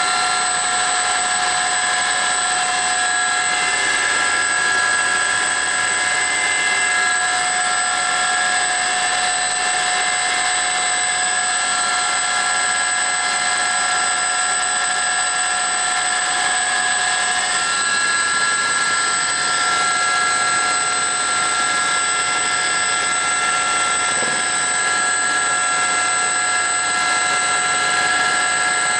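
Aérospatiale Gazelle helicopter in flight, heard from inside the cabin: its Astazou turbine and rotors make a steady, loud rushing drone with several high whining tones on top. A little past halfway one of the lower whining tones drops out.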